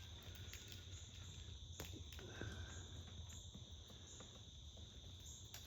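Faint, steady high-pitched chirring of an insect chorus, crickets by the sound of it, with a couple of sharp little clicks, one about two seconds in and one near the end.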